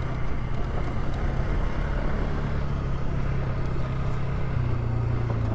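Polaris ATV engine running at a steady pitch while being ridden.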